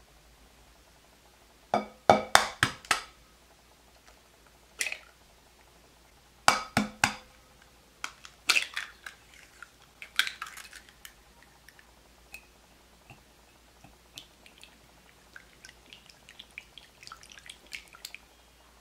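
Raw eggs being tapped and cracked open over a glass mixing bowl, in several quick groups of sharp knocks. Near the end come lighter, scattered taps of a silicone whisk starting to beat the eggs in the bowl.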